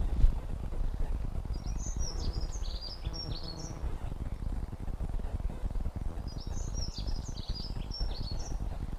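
Irregular low popping and crackling picked up by a GoPro camera's microphone, with one sharper pop about a quarter second in: the popping fault in the camera's recorded audio. Songbird chirping comes in twice over it, from about a second and a half to four seconds in and again from about six to eight and a half.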